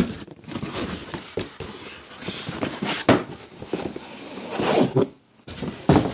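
Cardboard shipping carton being opened and handled, with flaps pulled back and a boxed set slid out. Cardboard scraping and rustling, with several knocks; the loudest come about three seconds in and near the end as the carton is shoved aside.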